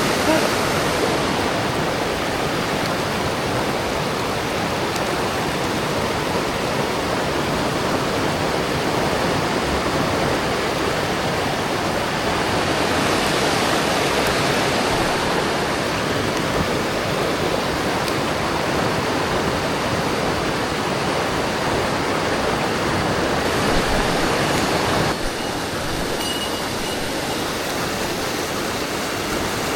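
Mountain stream water rushing over rocks in a steady, even hiss, a little quieter from about 25 seconds in.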